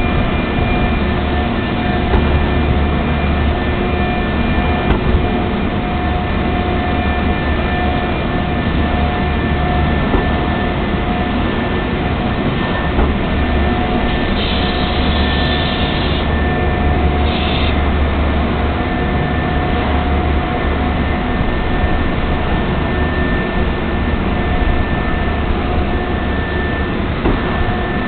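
A train-washing machine running on a train: a steady rushing and mechanical hum over a low rumble, with a few held tones. Two short bursts of hiss come a little past halfway.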